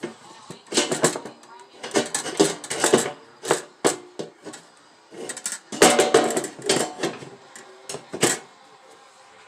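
Parts of an electric indoor grill clattering and knocking as a piece is pushed and fitted into place: clusters of sharp knocks and rattles, loudest about six seconds in.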